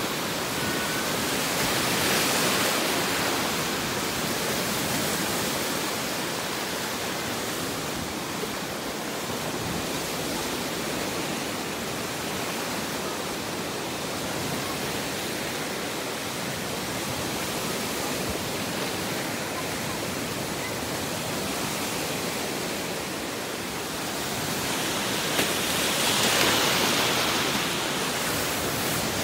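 Fast-flowing muddy floodwater surging and churning through trees, making a steady rushing noise that swells slightly about two seconds in and again near the end.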